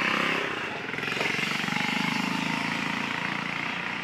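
A mass of fish thrashing and splashing at the water's surface, over a steady low rumble that swells and fades in the middle.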